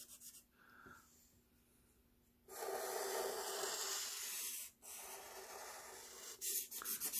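Felt-tip marker rubbing on paper while colouring in: a steady scrubbing stretch of about two seconds starting a couple of seconds in, then, near the end, quick back-and-forth strokes at about four or five a second.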